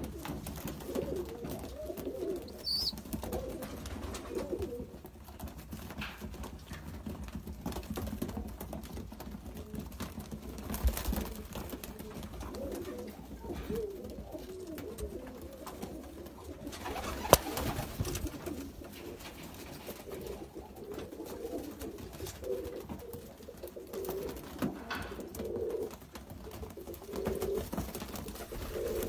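A flock of young high-flying pigeons cooing, many soft coos overlapping throughout, with a single sharp click about 17 seconds in.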